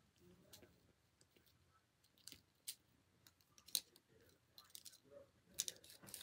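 Near silence broken by scattered light clicks and taps, the sharpest a little past halfway and near the end.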